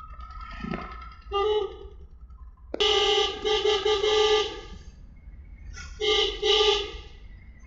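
Vehicle horn honking three times: a short toot, a long blast of about two seconds, then another of about a second. A steady low rumble of road and engine noise runs underneath.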